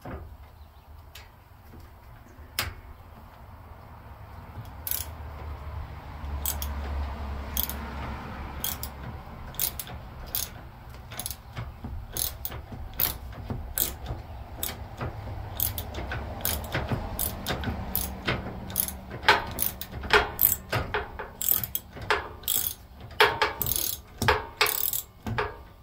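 Hand ratchet wrench clicking as a bolt on a lawn tractor's steering linkage is turned in short strokes. The clicks come sparsely at first, then faster and louder over the last several seconds.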